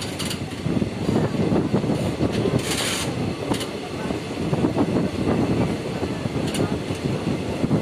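Passenger train running along the track, a steady rumble and rattle of wheels and coaches on the rails, heard from the open door with a brief rushing hiss about three seconds in.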